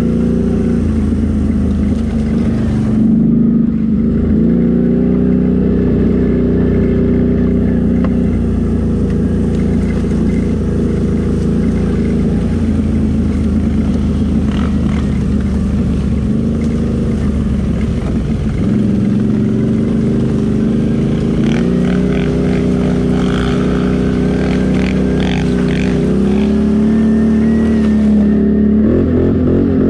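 Can-Am Renegade 800 ATV's V-twin engine running under way, its pitch rising and falling with the throttle, dropping about two-thirds through and picking up again. Scattered light ticks sound over the middle stretch.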